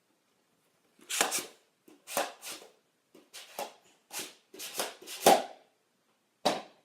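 Nerf Demolisher blaster's pump-action missile launcher being worked: a run of short plastic clacks and scrapes, then a single sharp pop near the end as the foam missile is fired.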